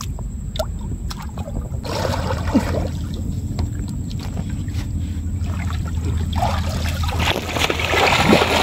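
River water splashing and sloshing as a man swims and wades through it, loudest near the end. Before that, a few light clicks as a wet fishing net is handled, over a steady low hum.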